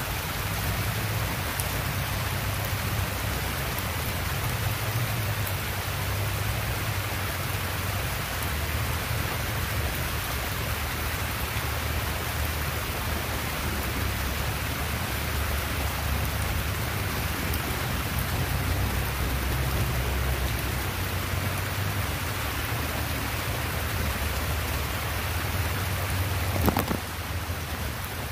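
Heavy rain falling steadily and splashing on wet pavement and puddles close by, with a steady low rumble underneath. Near the end there is one sharp click, and the rain is a little quieter after it.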